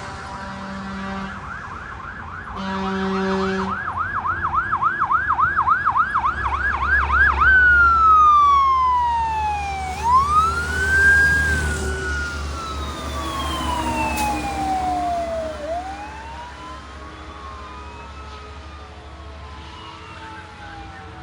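Fire apparatus siren on yelp with two horn blasts in the first four seconds, switching to a slow wail about seven seconds in while the truck's engine rumbles past. After about sixteen seconds it grows fainter, with overlapping wails from more than one siren.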